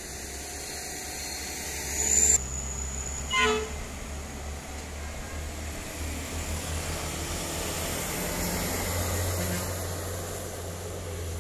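Diesel engine of a small truck loaded high with sugarcane pulling up a hill climb, its low running sound growing louder as it nears, with a short horn toot about three and a half seconds in.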